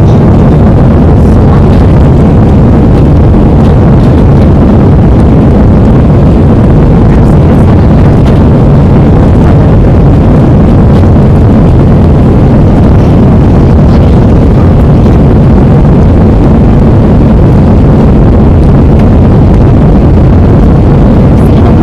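Jet engine and airflow noise heard inside an Airbus A318's passenger cabin on takeoff, a steady loud rush. The recording is badly distorted because the microphone level was set too high.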